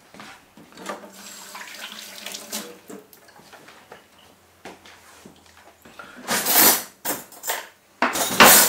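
Kitchen tap running water into a sink, followed near the end by two louder splashing bursts.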